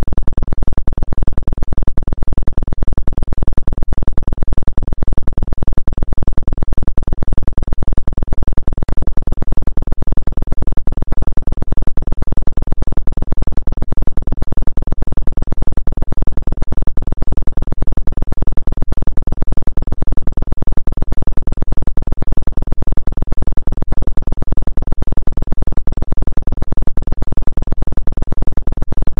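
Synthesized low tone, strongest in the deep bass, pulsing in an even, unbroken rhythm: a 'healing frequency' track billed as a 2 Hz acupuncture frequency.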